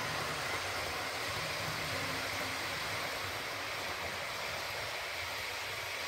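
OO gauge model Class 43 train running at speed on the track under DCC control: a steady hiss of the motor and wheels on the rails.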